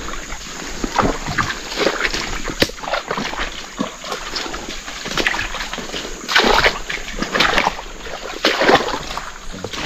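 Footsteps squelching and splashing through waterlogged swamp mud, one step after another, with a few louder splashes in the second half.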